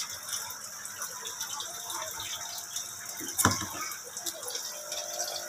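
Water splashing and trickling in a goldfish pond as fish are tipped from a plastic tub into it, with one brief louder sound about three and a half seconds in.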